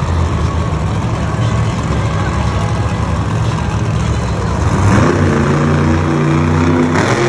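Monster truck's supercharged V8 engine running loud as the truck drives across the dirt floor. About five seconds in it revs up and holds at high revs.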